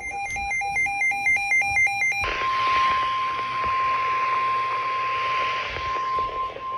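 An Emergency Alert System broadcast on NOAA Weather Radio: about two seconds of rapidly pulsing, buzzy data tones, then the steady single-pitched 1050 Hz warning alarm tone over radio static.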